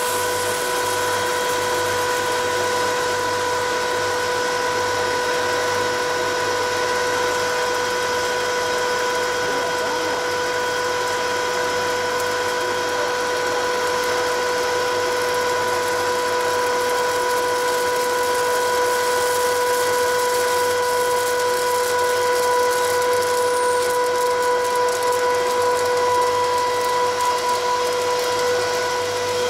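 Vertical double-head hot air popcorn machine running: its blower gives a steady high whine over a rush of air.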